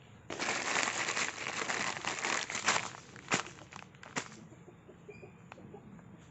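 Plastic detergent packaging crinkling as it is handled and opened, for about two and a half seconds, followed by a few sharp snaps or clicks.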